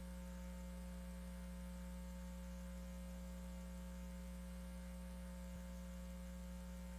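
Steady low electrical mains hum with a faint hiss under it, and no crowd, ring or voice sounds.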